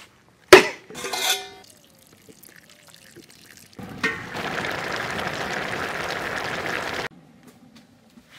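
A machete strikes a bamboo pole once with a sharp crack and brief ringing. Then water pours steadily into a pot for about three seconds and cuts off suddenly.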